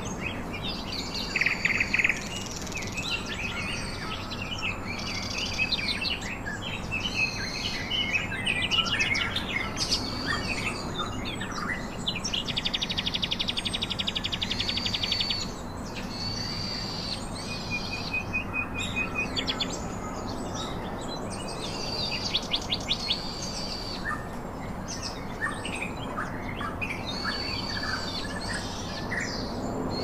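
Several small birds chirping and singing together, with a fast, even trill lasting about three seconds near the middle, over a steady background hiss.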